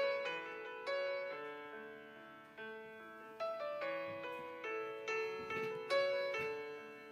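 Background music: a gentle piano melody, notes struck every second or so and left to fade.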